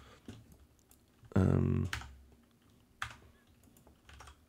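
A few scattered computer keyboard key presses and mouse clicks, with a short hum from a voice about a second and a half in.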